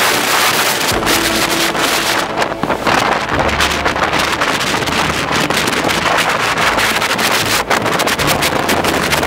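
Hurricane-force bora wind gusting against the microphone: a loud, steady rush of wind noise with constant crackling buffets and a low rumble.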